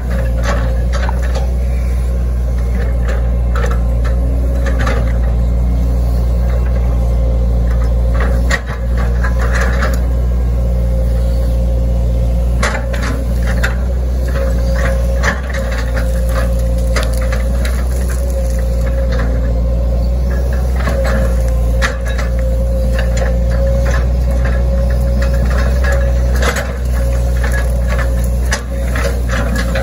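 Hitachi Zaxis 110 excavator's diesel engine running steadily, with a steady higher hum above it. Frequent short clicks and knocks come through as the bucket works through grass and brush.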